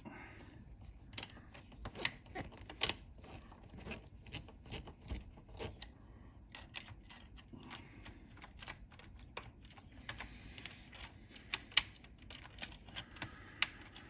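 Irregular light clicks and taps of a screwdriver and small metal and plastic parts being handled while an Amstrad CPC464's case is put back together, with a few sharper clicks about three seconds in and near the end.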